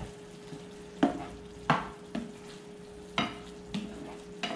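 Pork and pepper stir-fry being stirred in a frying pan with tongs and a spatula: about six scraping knocks of the utensils against the pan at irregular intervals, over a faint sizzle of frying.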